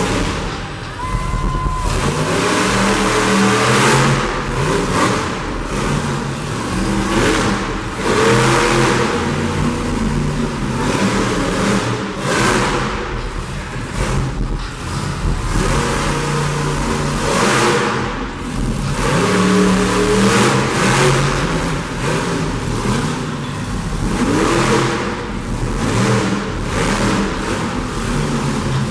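Monster truck engine revving hard again and again, its pitch climbing and falling with each burst of throttle every few seconds.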